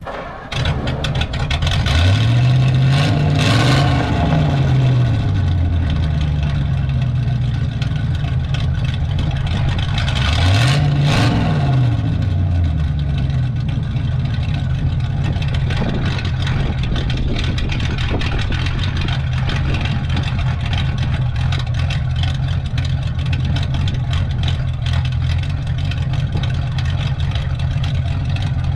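A large engine catching about half a second in. It is revved in two quick blips in the first few seconds and once more about eleven seconds in, then runs steadily.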